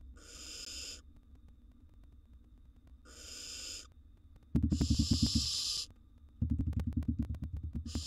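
Barn owl nestlings giving hissing, snore-like begging calls: three bursts of about a second each, the third the loudest. From about halfway through, a rapid run of low fluttering pulses is louder than the hisses.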